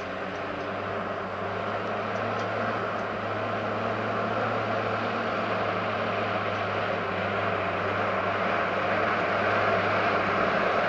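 Articulated dump truck's diesel engine running steadily as the truck drives closer, growing gradually louder.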